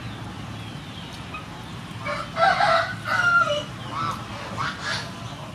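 A rooster crows once, starting about two seconds in, followed by a few shorter, fainter calls.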